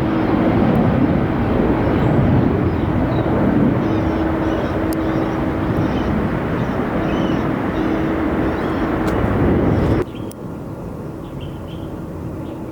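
Jet airliner engines running loud, a steady rumble with a low hum through it. About ten seconds in it cuts off suddenly to quieter outdoor ambience with a few faint chirps.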